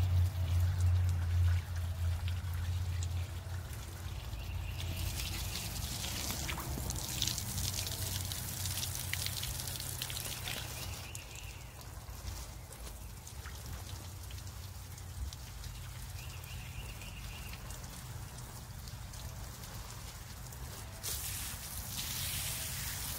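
Water from a garden hose spraying and splashing onto concrete and brick steps, hissing loudest from about five to eleven seconds in and again near the end. A low rumble is strongest in the first few seconds.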